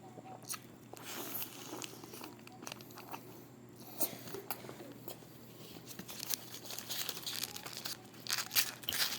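Close-miked eating and food-handling noises: irregular crunches and crinkles, growing busier in the second half.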